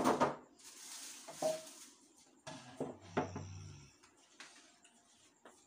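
Handling noises: a sharp knock at the start, then rustling and a few smaller bumps and scrapes.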